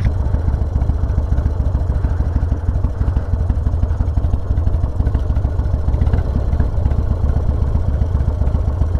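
1997 Harley-Davidson Dyna Convertible's Evolution V-twin running steadily, a low, even rumble of rapid exhaust pulses.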